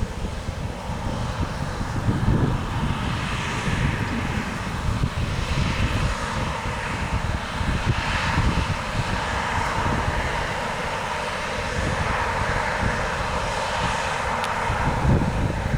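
New Holland CR8.90 combine harvester running while it harvests wheat: a steady engine drone with a low, uneven rumble under a broad whirring hiss of machinery.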